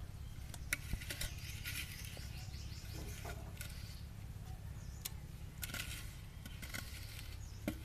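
Hands working wet colour onto clay pots, with a few sharp clicks and taps against the pots, while birds chirp faintly.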